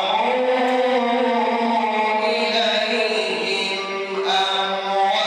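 A man reciting the Quran in melodic tajweed chant, drawing out long sustained notes, with a brief breath about four seconds in.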